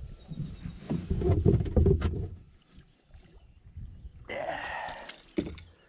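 Irregular knocks and bumps from a plastic sit-in kayak and the angler's gear as he shifts about and handles things in the boat. The bumping is loudest in the first half, and a short rushing noise follows about four and a half seconds in.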